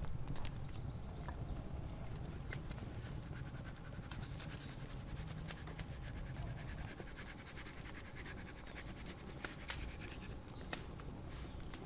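Hands sprinkling and rubbing ground spice onto raw pork slices on a wooden board, a soft scratching, with many sharp crackles from a wood campfire.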